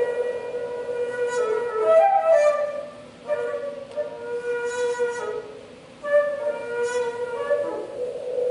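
Daegeum, the Korean large bamboo transverse flute, playing long held notes that bend and slide in pitch. The phrases break off briefly about three and six seconds in.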